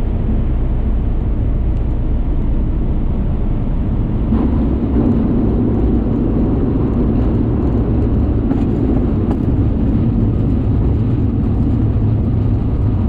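Tecnam Eaglet light aircraft's piston engine running: a steady, loud, low drone with a rushing noise over it.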